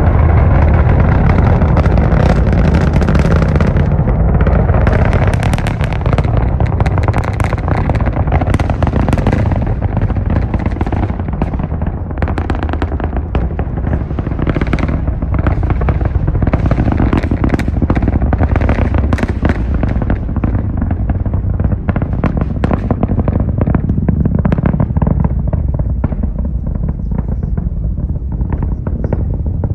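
SpaceX Falcon Heavy rocket's 27 Merlin engines during ascent: a deep, continuous rumble laced with dense, rapid crackling and popping, the crackle thinning out toward the end.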